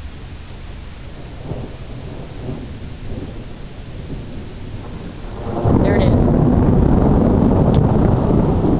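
Thunder from a nearby lightning strike: a low rumble grows for about five seconds, then a loud, deep crash breaks about five and a half seconds in and keeps rolling.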